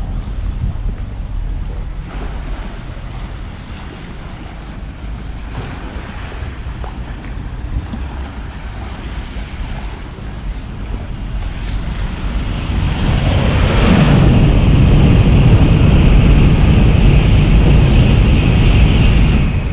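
Wind rumbling on the microphone by the lakeshore. About twelve seconds in, a much louder rumbling noise with a steady high ringing band builds up, holds, and cuts off abruptly just before the end.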